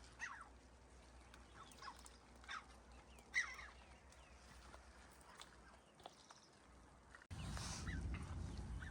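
Birds calling from time to time: short notes that fall steeply in pitch. About seven seconds in, a low rushing noise sets in suddenly and stays.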